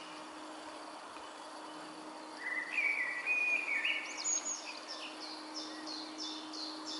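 Songbirds singing: a phrase of clear whistled notes about two and a half seconds in, then a quick run of repeated falling notes, about three a second, from about four seconds on. Under it runs a faint steady hum.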